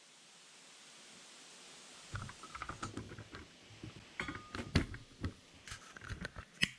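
Irregular clicks and light knocks of tools and metal parts being handled on an engine, starting about two seconds in after a faint hiss.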